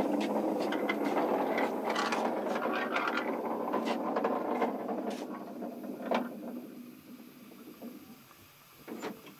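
Miniature railway turntable being turned by hand with a model steam locomotive on it, the metal rotating with a grinding squeal and many small clicks, easing off about six seconds in with a last sharp click. A couple of small knocks follow near the end.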